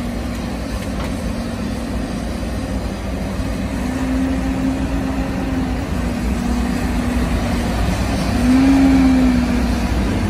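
Diesel engine of heavy logging equipment running steadily with a low rumble, its pitch rising briefly about four seconds in and again, more strongly, about eight seconds in.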